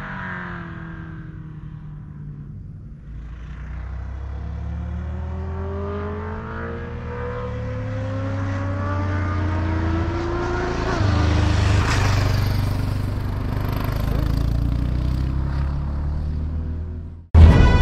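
Motorcycle engine accelerating, its pitch climbing steadily for several seconds with a short drop about eleven seconds in before it climbs again. Music cuts in abruptly near the end.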